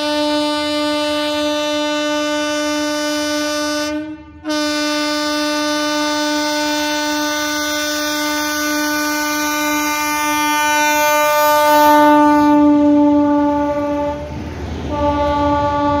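Air horn of a WAP7 electric locomotive sounding one steady tone almost without pause as the train approaches and passes, the continuous honking that follows an alarm-chain pull. The horn breaks off briefly about four seconds in, is loudest a couple of seconds before the locomotive passes, and stops for about a second near the end, when the rumble of the passing locomotive shows through before the horn resumes.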